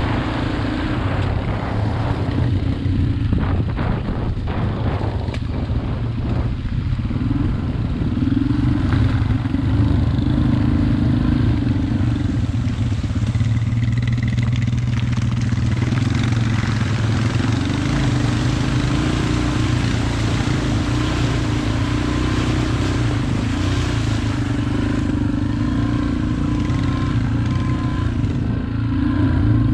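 Small dirt bike's engine running at a fairly steady low speed on a trail ride, heard from the bike itself, with a scatter of knocks and rattles in the first several seconds.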